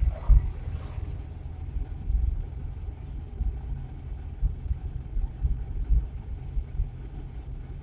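Old Suzuki Carry 1.0 pickup's 1.0-litre four-cylinder engine and road rumble heard inside the cab while driving, a steady low rumble that swells and dips. A brief thump sounds just after the start.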